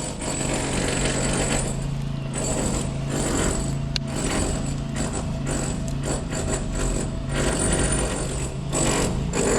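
Road-works machinery running: a steady low hum under rapid mechanical hammering and clatter.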